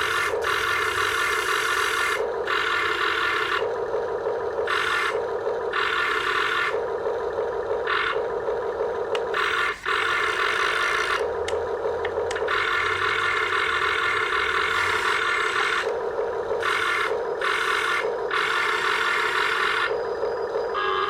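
Electric motors of a radio-controlled backhoe whirring in a steady drone. A harsher hiss cuts in and out every second or two as different functions are worked, with a brief drop about halfway through.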